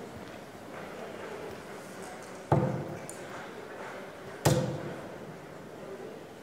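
Steel-tip darts striking a Bull's Focus II sisal bristle dartboard: two sharp thuds about two seconds apart, with a third just at the end.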